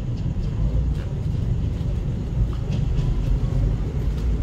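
Diesel locomotive rumbling steadily as it pulls slowly into the station.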